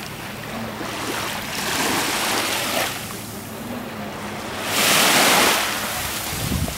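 Small waves washing up onto the beach close by, in two swells of hiss, the second, about five seconds in, the loudest.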